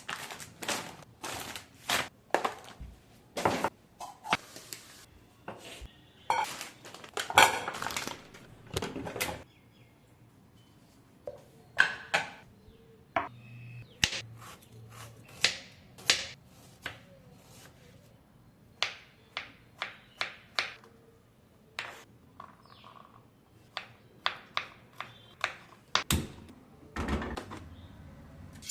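Kitchen cooking sounds: a long run of sharp knocks and clinks from utensils, dishes and pans, irregular with some quick runs of strikes and quieter gaps between.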